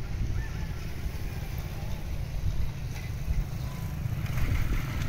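Small motorcycles riding across a railway level crossing, their engines coming in about four seconds in, over a steady low rumble.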